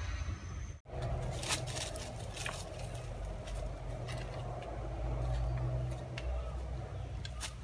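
Rustling and crackling of leafy plants being pulled and dry leaf litter underfoot, a scatter of short crackles over a steady low rumble.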